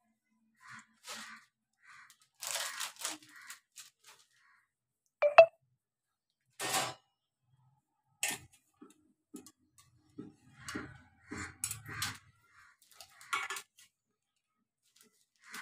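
Hand squeezing and gathering freshly churned butter in buttermilk in a steel bowl: irregular wet squelches and splashes with short pauses between. About five seconds in comes one sharp knock with a short ring, the loudest sound.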